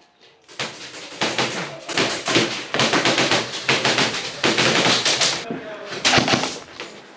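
Airsoft guns firing: a dense run of sharp, rapid shots lasting several seconds, breaking off about five and a half seconds in, then a few more shots just after.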